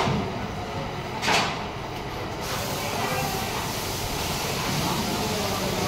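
Steady factory floor noise, a constant hum and rush of machinery and air, with one short hiss about a second and a half in.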